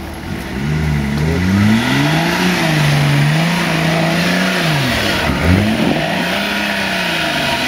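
Nissan Patrol's engine revving hard under load as the 4x4 climbs out of a muddy gully. The revs rise, hold high, drop sharply about five seconds in, then climb again and ease off.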